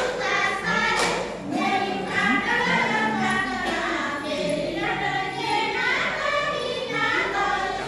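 A group of voices singing a Tharu folk dance song, with one sharp knock about a second in.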